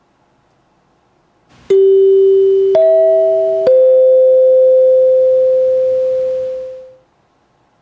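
A three-note chime: a low note, a higher note and a middle note struck in quick succession, each ringing on and fading out over a few seconds.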